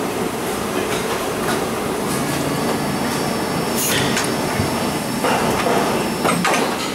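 Injection moulding machine running steadily through its cycle, with a sharp clack about four seconds in. The noise grows louder about five seconds in, with more clacks near the end as the three-way stopcock mould opens.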